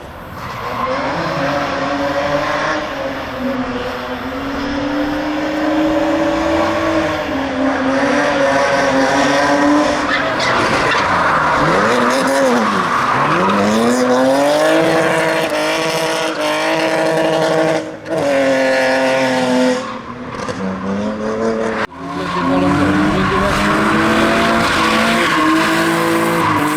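Drift car engine held at high revs with tyres squealing as the car slides; the revs drop and climb back sharply about halfway through, and the sound breaks off abruptly twice near the end.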